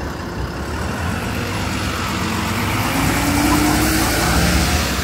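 A city bus driving past at close range amid street traffic. The noise swells to its loudest three to four seconds in, with a low whine that rises slightly in pitch.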